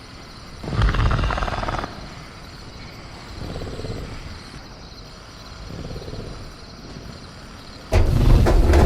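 Sound-effect velociraptor in a cage: a low rumbling growl about a second in, two fainter grumbles, then a sudden loud burst near the end, over a steady faint high chirring of crickets.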